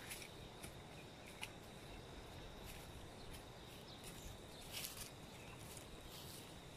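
Faint outdoor ambience: a steady, high, thin insect trill, with a few soft rustles and clicks scattered through it.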